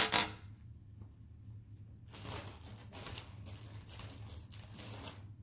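Costume jewelry and its packaging being handled: a sharp rustle right at the start, then a run of light rustling and jingling from about two seconds in.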